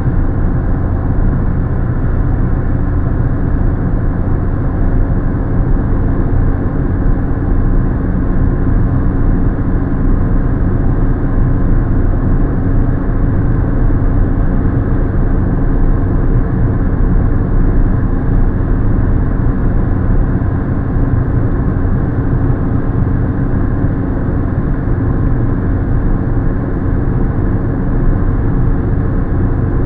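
Steady cabin noise of a car cruising at motorway speed, heard from inside: engine hum under a constant wash of tyre and road noise, unchanging in level.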